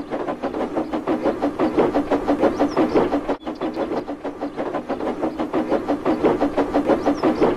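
Steam tank engine chuffing rapidly and evenly as it runs along, with a brief drop-out about halfway through.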